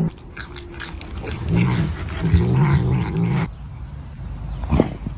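A dog growling, a low wavering rumble lasting about two seconds, starting about one and a half seconds in; it cuts off abruptly, followed by a few faint clicks.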